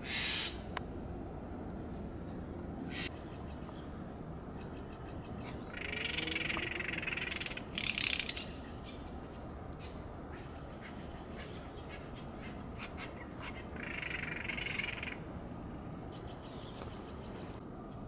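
Steller's jay giving harsh, raspy calls: a short one at the start, a drawn-out one about six seconds in followed closely by a short one, and another drawn-out one about fourteen seconds in. A sharp click near three seconds and faint ticks fall between the calls.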